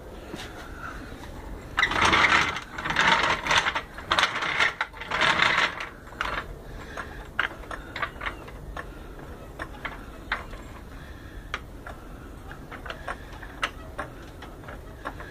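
Ratchet strap being cranked tight to lift a transmission into place: a few loud rasping strokes of ratchet clicking, then scattered single sharp clicks.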